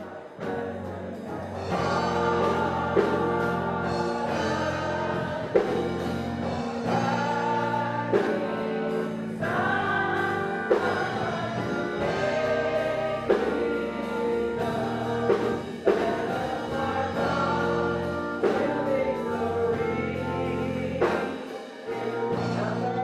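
Music: a choir singing held, gospel-style chords, with a sharp accent about every two and a half seconds.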